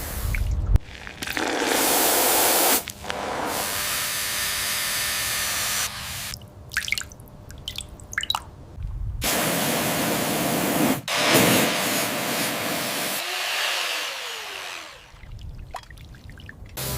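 Long bursts of hissing, spray-like noise, each a couple of seconds, broken by short gaps with scattered small clicks and taps.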